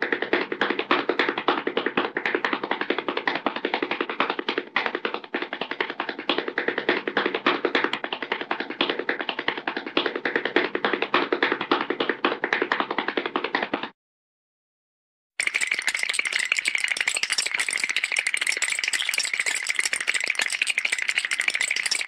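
Two cartoon sound-library effects played in turn. First a long, fast, dense rattling clatter that stops about fourteen seconds in. After a second and a half of silence comes a higher, buzzier rattle with a steady whine running through it.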